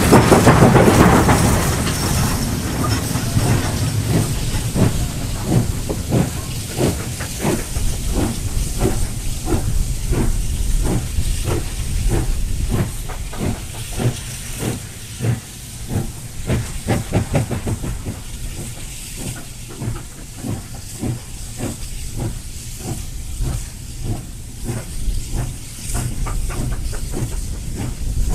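SY-class 2-8-2 steam locomotive working a loaded coal train, with a steady rhythm of exhaust beats over a low rumble and steam hissing. The hiss is loudest in the first couple of seconds.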